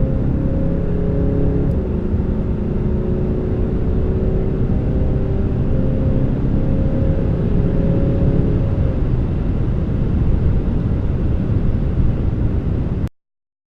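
Peugeot 508's 2.0 BlueHDi four-cylinder turbodiesel running under load with road noise, a steady drone whose pitch shifts slightly a few times. It cuts off abruptly near the end.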